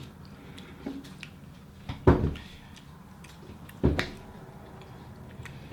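Two dull thumps about two seconds apart, the first the louder, among faint clicks and rustles.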